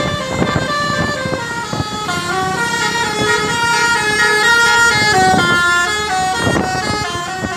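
Indonesian bus 'telolet' horn, a Basuri multi-tone air horn, playing a melody of short stepped notes that change pitch several times a second, loudest around the middle.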